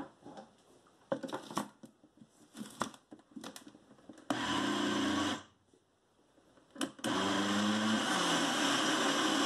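Countertop blender with a plastic jar: a few knocks and clicks as the lid is handled, then the motor runs for about a second, stops, and starts again, running steadily through a thick cornmeal cake batter.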